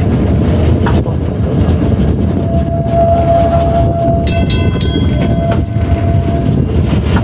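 Kenosha PCC streetcar running along its rails, heard from an open side window: a loud, continuous low rumble with a steady whine that fades in and out. A little after four seconds in, a brief cluster of high-pitched ringing squeals sounds for about a second.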